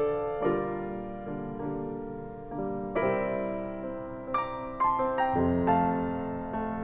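1975 Steinway Model M grand piano played solo in a slow improvisation: struck notes and chords ringing and decaying, with a bass entering about five seconds in.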